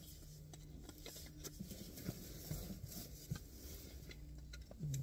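Light rustling and small clicks of a Tootsie Roll bank tube being turned over in the hands, scattered through the middle seconds.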